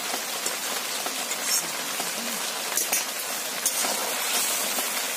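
Chicken cooking in its own tomato juice in a metal kadai over the heat, a steady sizzling hiss, with a few light clicks of a fork against the pan.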